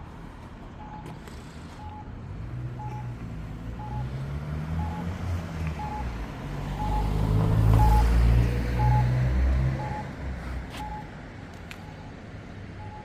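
A vehicle's reversing alarm beeping about once a second, over the low rumble of an engine that grows louder, peaks past the middle, then fades away.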